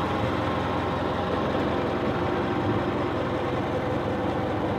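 A 1927 Model T Ford four-cylinder engine running steadily as the Model T fire truck drives along, heard from on board.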